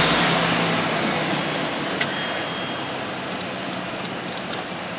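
Chevrolet square-body pickup engine revved and settling back toward a steady idle, loudest right at the start and easing down over the next few seconds. A single sharp click about two seconds in.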